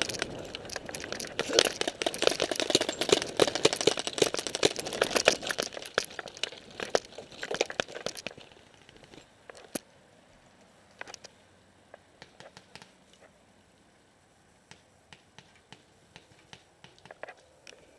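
Dense rustling, rattling and crunching of a paintball player's gear and footsteps while running, loud for about eight seconds. It then goes quiet, with scattered single sharp pops.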